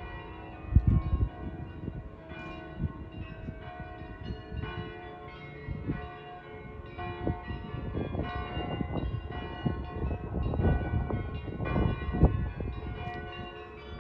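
Church bells of several Utrecht churches ringing together, their tones overlapping, with wind buffeting the microphone in gusts. The gusts are strongest about a second in and again from about eight to twelve seconds.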